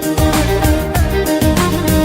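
Music: a melody of long held notes, like a violin or fiddle, over a steady beat.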